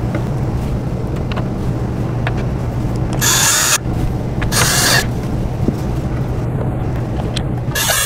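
Cordless drill/driver spinning in two short bursts about a second apart, with a third starting near the end, driving bolts through a wooden basket track into metal inserts. Light clicks of parts being handled come between the bursts.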